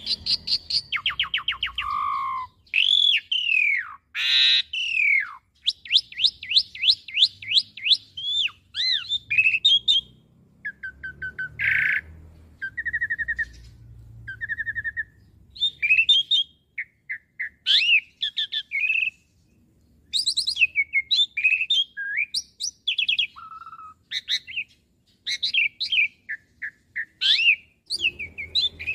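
Asian pied starling singing a long, varied song: fast trills, rising and falling whistled glides and short buzzy notes in quick succession, broken by brief pauses.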